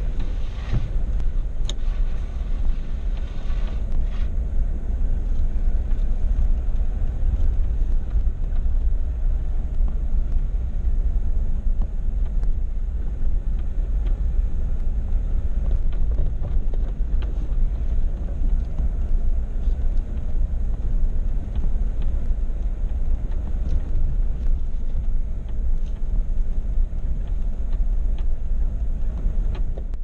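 A Jeep driving along a rough dirt road, heard from inside the cab: a steady low rumble of engine and tyres, with a few faint rattles in the first few seconds.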